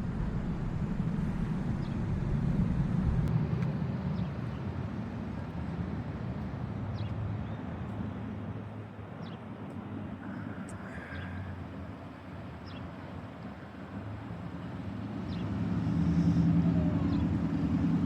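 Outdoor traffic noise: cars running and passing. Near the end one vehicle's engine hum grows louder as it comes close.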